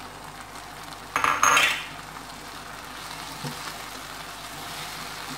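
Slotted spatula stirring mashed chicken into a simmering milk sauce in a nonstick frying pan, over a steady sizzle. A louder burst of scraping and clatter comes about a second in.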